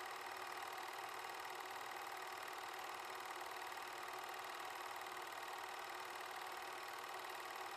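Steady mechanical whirr and clatter with hiss and a few constant hum tones, unchanging throughout, typical of an 8mm film projector running while the silent film is transferred.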